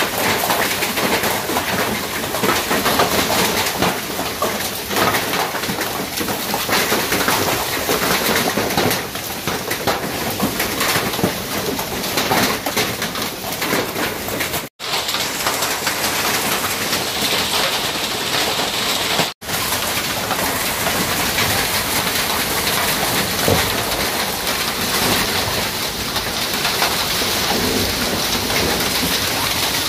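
Heavy rain mixed with hail pelting bare earth and corrugated tin sheets and roofs: a dense, steady patter of countless small hits. The sound cuts out for an instant twice, around the middle.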